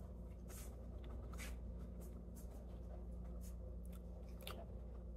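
Faint chewing of a mouthful of soft mash, with a few scattered soft mouth clicks over a low steady hum.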